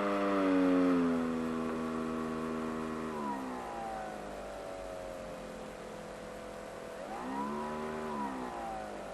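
Electric motor and propeller of an FPV model plane running, its whine dropping in pitch as the throttle is eased back about three seconds in, then rising briefly near the seven-second mark and falling away again.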